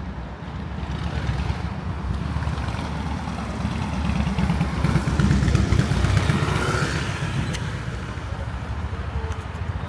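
A motor vehicle passing close by, its engine and tyre rumble growing louder to a peak about halfway through and then fading.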